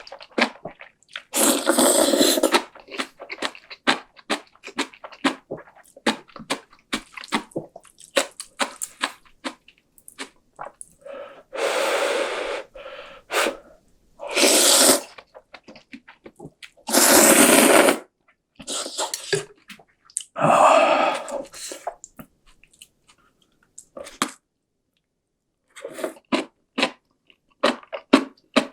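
A person eating instant cup ramen noodles close to the microphone: five long, loud slurps of about a second each, with chewing and mouth clicks between them.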